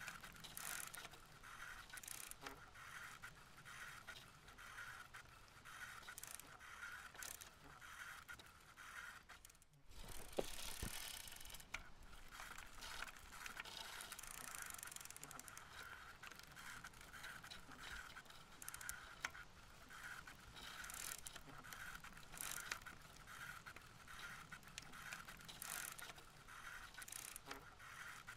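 Faint noise of a bicycle being ridden along a road, with an even, repeating pulse from the moving bike and a short louder patch of noise about ten seconds in.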